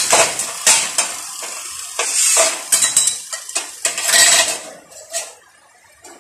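Angle grinder with an abrasive cut-off disc cutting through a steel bar: a harsh, hissing grind broken by sharp scraping clicks. It fades away about five seconds in.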